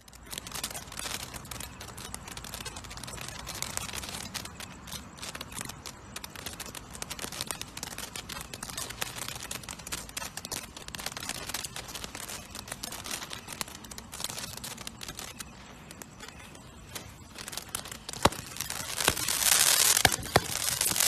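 Brothers Pyrotechnics 'Praise The Sky' fountain/Roman candle firework: the fountain hisses with dense crackling for most of the time. Near the end it gets louder, with several sharp pops as the comets are fired up.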